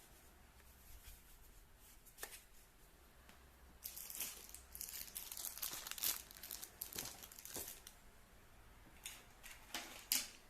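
Packaging being handled, crinkling and rustling for about four seconds in the middle, with a few sharp crackles near the end.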